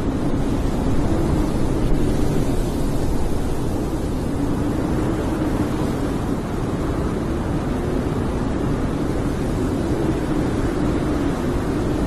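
Snowstorm wind blowing steadily: a low rushing noise with a moaning tone that swells and eases.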